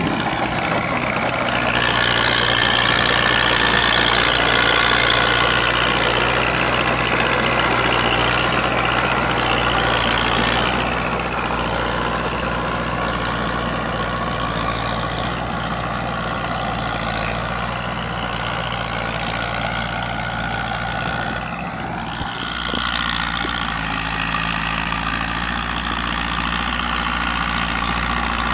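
Diesel tractor engine running steadily under load as it pulls a rotavator through dry soil. The engine sound dips and changes about three-quarters of the way through.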